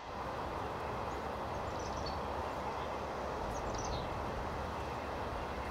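Steady outdoor background noise with a few short, faint bird chirps, about two seconds in and again around three and a half to four seconds.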